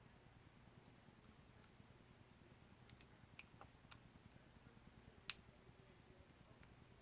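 Near silence broken by a few faint, sharp clicks, the loudest about five seconds in: small parts being handled at a drone camera's ribbon cable connector.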